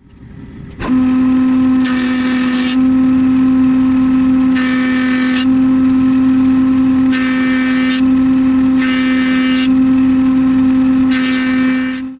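A stationary woodworking power machine running with a steady whine. Timber is fed through it five times, each pass a short burst of cutting noise about every two and a half seconds. It starts suddenly about a second in and cuts off at the end.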